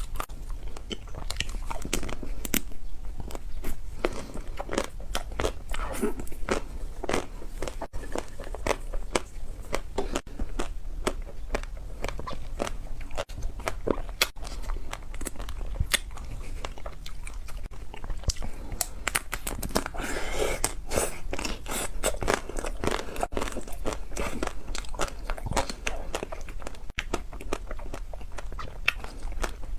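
Close-miked biting into a chocolate-coated ice cream bar: the hard chocolate shell cracking in many sharp crunches, with chewing between bites.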